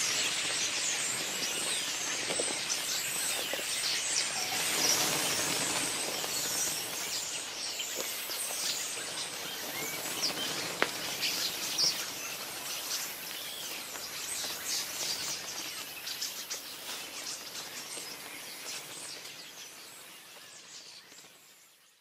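A dense chorus of many birds chirping and chattering together in the trees, fading out near the end.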